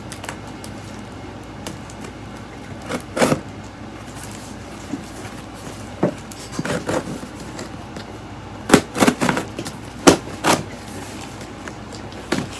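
Package being handled and opened: scattered clicks, knocks and short rustles of cardboard and packaging, loudest in a cluster of sharp knocks about nine to ten and a half seconds in.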